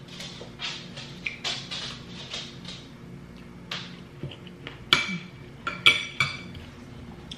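Metal spoon and fork clinking and scraping on a ceramic plate during a meal, with softer eating noises in the first few seconds. Two sharp, ringing clinks come about five and six seconds in.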